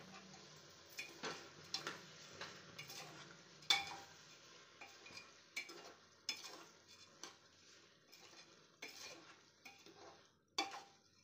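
A metal spoon stirring rice and vegetables in a pressure cooker, scraping and clinking against the pot's sides in irregular strokes. There is a louder knock about four seconds in and another near the end.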